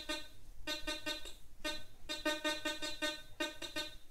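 Teknetics T2 metal detector sounding its target tone as a button is passed over the search coil in an air test. About five buzzy, pulsing tones of about half a second each, one per pass.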